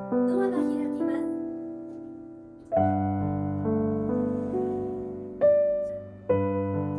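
Background piano music: slow chords struck and left to ring out, a fresh chord every second or two.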